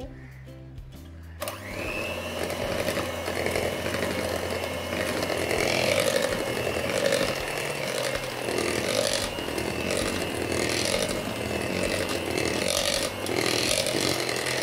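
Electric hand mixer switched on about a second and a half in, then running steadily with a constant motor whine as its wire beaters churn flour into thick cake batter.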